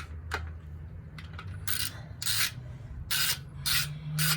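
Socket ratchet worked back and forth to loosen a bolt: a run of short rasping strokes starting about a second and a half in, roughly two a second.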